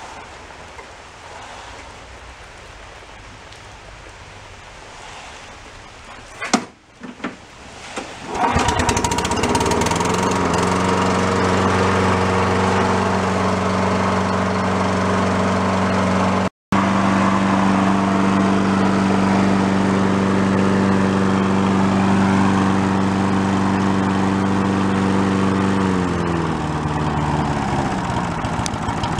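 Rain hissing steadily, then a few sharp clicks and the Scotts push mower's Briggs & Stratton single-cylinder engine starts about eight seconds in and runs steadily. Near the end its speed drops a little and it settles at a slightly lower, steady speed.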